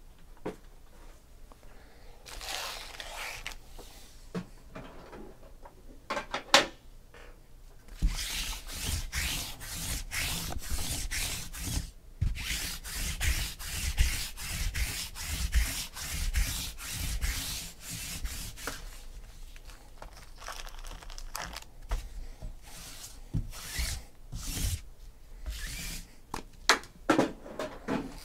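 Shrink-wrapped trading-card packs being handled and slid against each other and the tabletop: a run of rapid rubbing strokes, a few a second, lasting about ten seconds, with scattered rubs and light knocks before and after.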